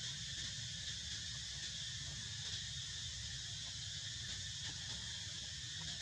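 Steady insect chorus, a continuous high-pitched buzz, over a low rumble.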